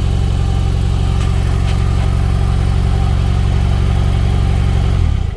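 Car engine running with a steady, uneven pulsing from a dead misfire on cylinders 1 and 4. It cuts off just before the end.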